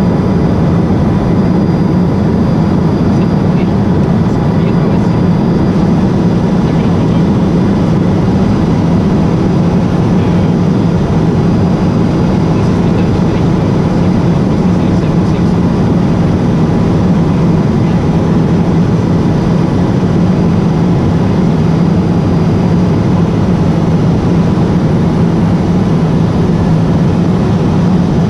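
Cockpit noise of a Cessna P210 Silver Eagle in flight: its Rolls-Royce turboprop engine and propeller give a steady deep drone with a faint, steady high whine, over the rush of airflow.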